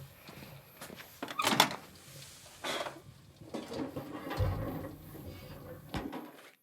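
Microwave oven door and its contents being handled: scattered knocks and clatters, the loudest about a second and a half in.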